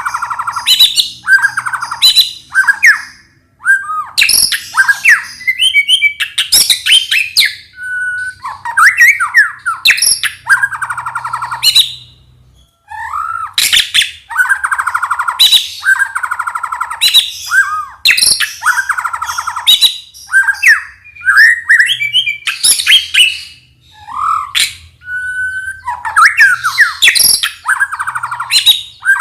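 White-rumped shama (murai batu) singing loudly: a varied run of rapid trills, whistled glides and chattering notes in short phrases, with a brief silent break about twelve seconds in.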